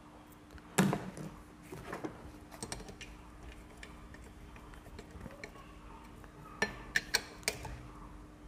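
Metal tools and small motorcycle engine parts being handled, clicking and clattering: one loud knock about a second in, light clicks through the middle, and four sharp clicks near the end.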